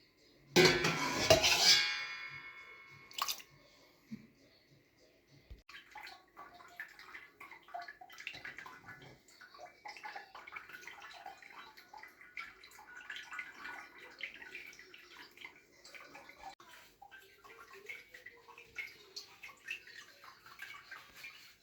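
Water splashing and dripping, with a steady run of small irregular clicks and wet handling noises, after a loud burst of sound lasting about two seconds near the start.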